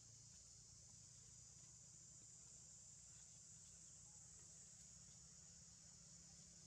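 Faint, steady high-pitched insect chorus over a low background rumble.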